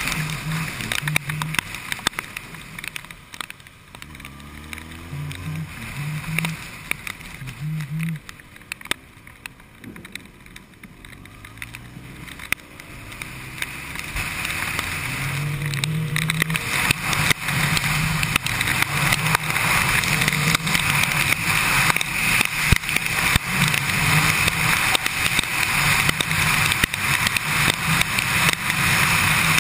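Kawasaki Ninja inline-four sport bike ridden on a wet road, heard from on the bike. The engine note rises and falls with the throttle. It goes quieter for a stretch in the middle as the bike slows in traffic. About halfway through, a steady, louder rush of wind and wet-tyre hiss builds as it speeds up, with scattered sharp ticks.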